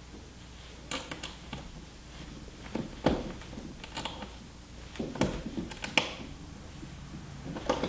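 Irregular small metallic clicks and ticks of an Allen key and a small wrench working on stainless steel screws and nuts, tightening a bracket and back plate. The loudest click comes about three seconds in.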